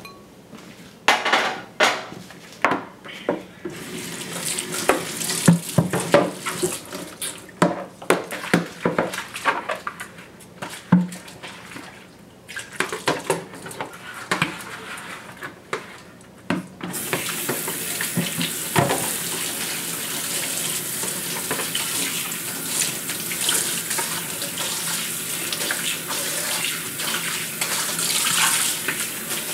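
Dishes knocking and clattering as bowls are handled in a stainless steel kitchen sink, with water splashing. About halfway through, the tap opens fully and runs steadily into the sink over a plastic bowl of greens being rinsed.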